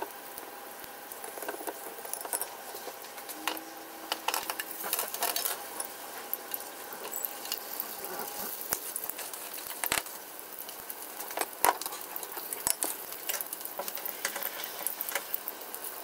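Sausages wrapped in gyoza skins sizzling and crackling in oil in a frying pan, with sharp clicks of chopsticks as they are turned. Early on, chopsticks also clack against a glass bowl as egg is beaten.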